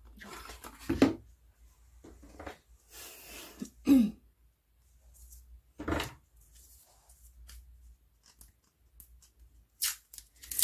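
Thin cardboard from a flattened drink box being handled and folded: scattered rustles and scrapes with a few sharp knocks, the loudest about one, four and six seconds in, and a cluster of sharp clicks near the end.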